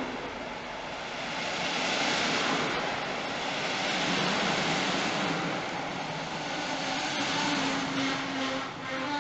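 Former Deutsche Reichsbahn double-deck coaches of a regional train hauled by a DB class 143 electric locomotive rolling past along the platform: steady wheel and rail noise, with a low steady hum coming in near the end.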